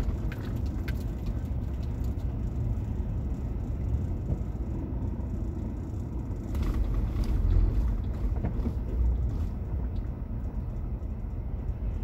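Steady low rumble of a car driving, engine and tyre noise heard from inside the cabin, swelling a little about seven seconds in.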